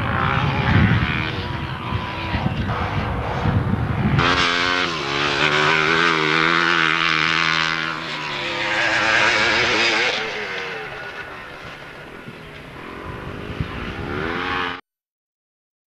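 Enduro dirt-bike engine revving hard as the bike passes and rides away, its pitch rising and falling through the throttle and gear changes, then fading. It swells again briefly before the sound cuts out abruptly near the end.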